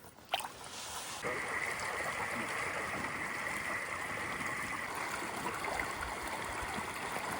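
Creek water running steadily, coming in suddenly about a second in and holding even after that.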